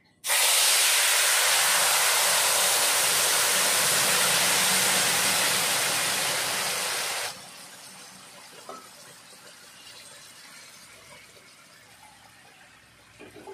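Boiling water poured into semolina roasted in hot ghee, setting off a loud, steady hiss and sizzle of steam that cuts off suddenly about seven seconds in. Quieter bubbling of the simmering halwa follows.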